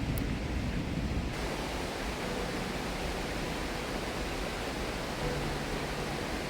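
Steady rush of a waterfall and river, an even hiss. Just over a second in, a lower rumbling noise gives way to it.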